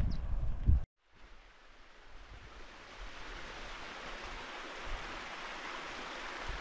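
Wind buffeting the microphone with low rumbling gusts, cut off abruptly about a second in. Then a steady rushing hiss of running water fades in and holds.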